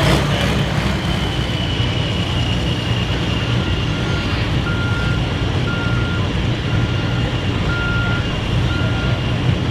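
A heavy engine running steadily with a low rumble and a faint high whine. From about three and a half seconds in, a vehicle's reversing alarm beeps about once a second.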